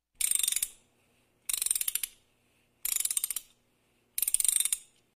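Ratchet wrench clicking in four short runs of rapid ticks, about 1.3 seconds apart, the sound of a ratchet being worked to turn a nut.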